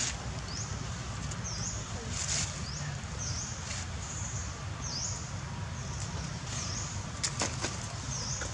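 A small bird calls over and over, a short high thin note that dips and rises again roughly once a second. Under it runs a steady low rumble, with a few brief rustles.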